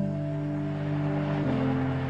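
Background music: soft, sustained ambient keyboard chords, changing chord about one and a half seconds in.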